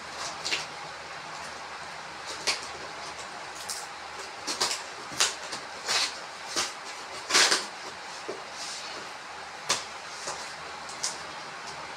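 Cardboard shipping box being opened by hand: a string of irregular scrapes, rips and rustles as the taped cardboard flaps are pried and pulled apart, the loudest a little past the middle.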